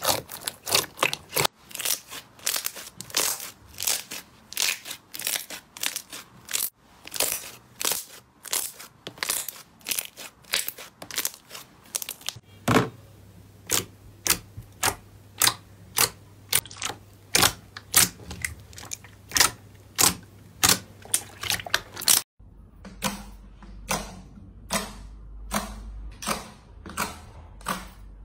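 Slime being squeezed and poked with the fingers, giving a quick series of sharp wet pops and clicks, about two or three a second. The character shifts twice as it moves from a soft purple slime to glossy pink and then glossy green slime.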